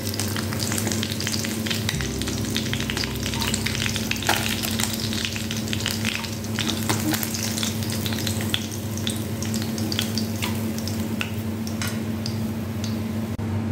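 Bata fish, fried brown, sizzling and crackling steadily in hot mustard oil in a kadai, with a slotted spatula scraping in the pan as the fish are lifted out.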